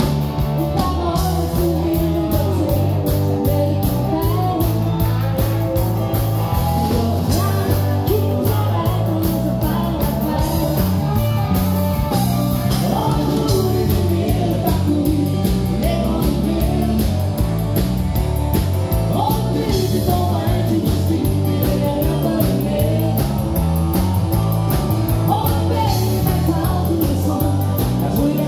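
Live country music: a woman singing over a band with guitar, bass and a steady beat, recorded on a phone.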